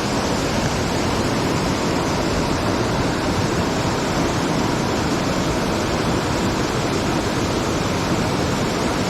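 A river waterfall rushing, an unbroken steady wash of falling water.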